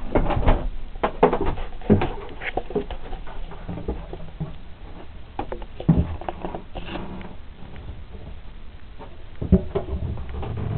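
Irregular knocks, clicks and rustles of someone moving about and handling fittings inside a small yacht's wooden cabin, with a denser cluster of knocks near the end.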